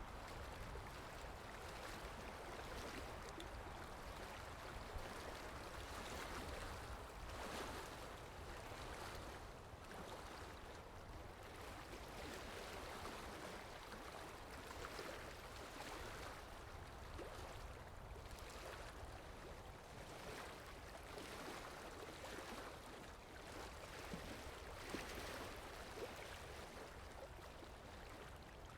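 Faint, steady wash of moving water with a low rumble underneath, as heard at the water's edge while large ships pass.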